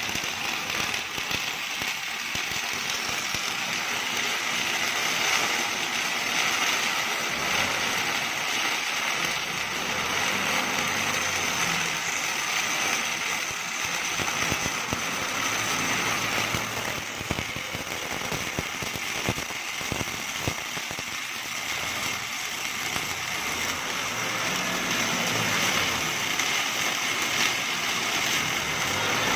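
Automatic MIG welding torch arc crackling steadily as it runs a seam on a vehicle axle, over the machine's motor hum.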